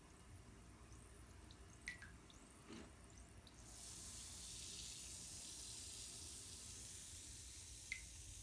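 Bath water with a few drips and plinks, then a steady high fizzing hiss that starts about three and a half seconds in: a cotton candy bath bomb dissolving in the water.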